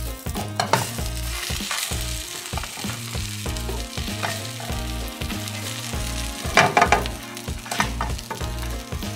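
Bread slices filled with egg and cheese sizzling in butter in a nonstick frying pan. A silicone spatula scrapes and knocks several times as the slices are flipped, loudest a little past two-thirds through.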